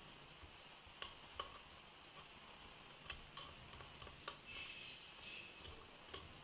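Grated onion being pressed through a kitchen strainer into a glass to squeeze out its juice: a few faint clicks and taps of utensil on strainer, and a high squeaky scrape for about a second and a half a little past the middle.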